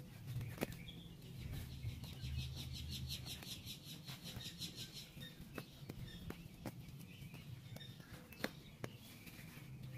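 Gloved hands digging and rustling in dry garden soil among sweet potato vines, with soft low rustling and a handful of sharp little clicks. A rapid high chirping, typical of a small bird, runs through the first few seconds.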